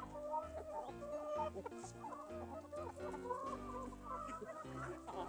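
Hens and a rooster clucking excitedly as they scramble and feed, the calls overlapping continuously, over background music with slow, held bass notes.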